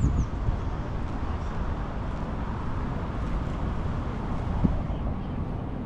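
Steady low rumble of city street traffic, with a single short knock about four and a half seconds in.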